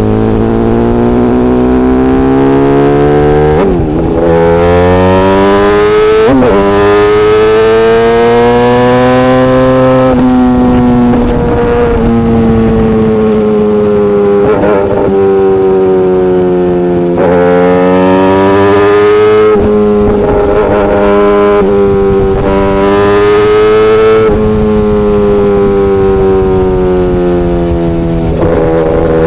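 Yamaha YZF-R6 inline-four running through an SC Project exhaust, pulling up through the revs with short breaks at gear changes. The pitch climbs and falls repeatedly as the bike accelerates, shifts and eases off.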